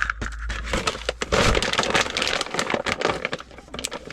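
Dense, irregular crackling and crunching of dog food and its containers being handled and mixed, loudest about a second into the sound.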